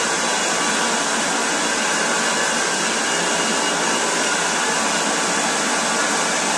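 Electric countertop blender running at full speed with a steady, even whir, grinding sausage and a little water into a paste.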